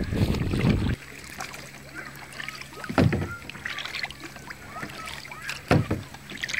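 Kayak paddle strokes in lake water: two sharp splashes about three seconds apart, with water trickling and dripping off the paddle blade between them. Wind buffets the microphone for the first second.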